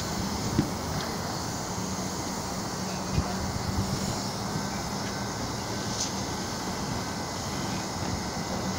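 Steady outdoor rumble and noise with a faint low hum, broken by a sharp knock about half a second in and another about three seconds in.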